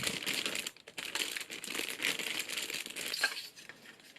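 Plastic packaging crinkling as it is handled and pulled about, dying away near the end.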